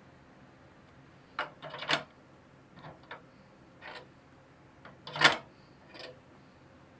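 A run of sharp metallic clicks and knocks, the loudest about five seconds in: a cordless drill and its bit being set against the steel engine mounting plate of a garden tractor frame. No drill motor is heard running.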